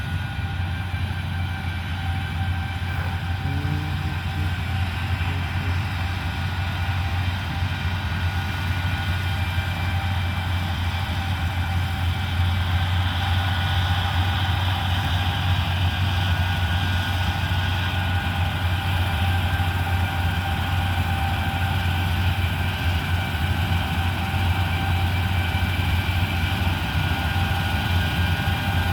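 Heavy farm machinery engine running steadily under load, a deep drone with a steady whine above it, growing a little louder about halfway through.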